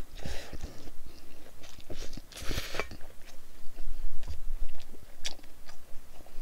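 A person chewing a large mouthful of food close to the microphone, with many small wet clicks and smacks and two brief breathy rushes, one near the start and one about halfway through.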